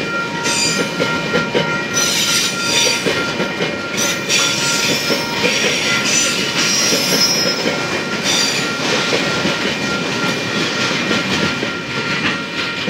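Freight train wagons rolling through a level crossing, wheels clattering over the rail joints with patches of high wheel squeal, over a steady ringing from the crossing's warning bell.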